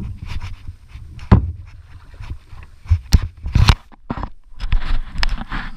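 Action camera knocking and rubbing against clothing: irregular thumps, knocks and rustling, with the sharpest knocks about a second in and around three seconds in.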